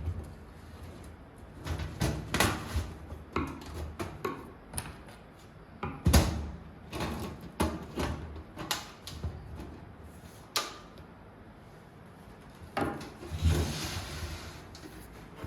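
Metal DVR rack parts being handled: a run of irregular clicks and knocks, the loudest about six seconds in, and a short scrape near the end.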